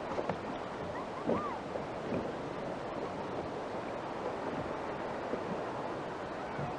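Sea water washing and wind blowing across the microphone, a steady rushing noise, with a few faint short calls that rise and fall in pitch over it.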